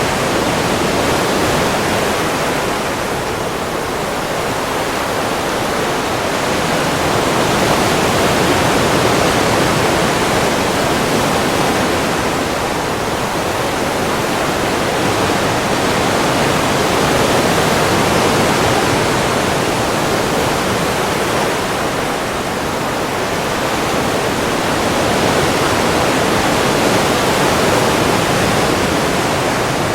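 Ocean waves washing in a continuous surf, swelling and easing in slow surges about every nine seconds.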